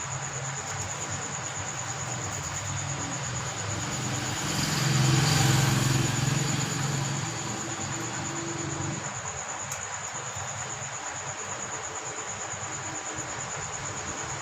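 A steady, high-pitched insect trill over outdoor background noise. A vehicle passes, rising and fading about four to eight seconds in.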